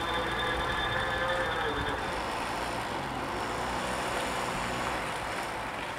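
Electronic warning bells of a Dutch automatic half-barrier level crossing ringing while the barriers rise, then stopping about two seconds in as the barriers reach the top and the crossing reopens. After that a steady background hiss of passing traffic remains.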